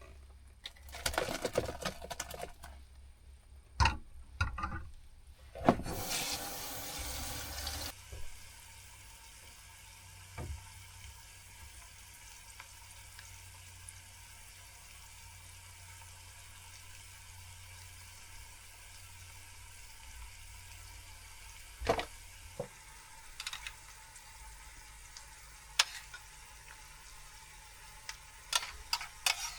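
Cooking sounds: utensils knocking and scraping against a pan, a loud hiss lasting about two seconds, then a faint steady sizzle of food frying with occasional sharp clicks.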